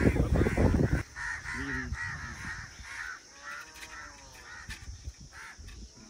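Crows cawing over and over in harsh, short calls. A loud low rumble fills the first second.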